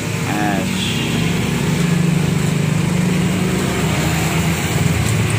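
An engine running steadily close by, growing a little louder about two seconds in.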